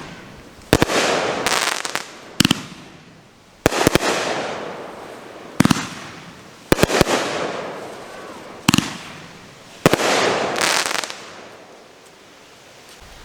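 Consumer firework cake firing shells one after another, about seven shots roughly every one to two seconds. Each shot is a sharp report followed by a crackling hiss that fades.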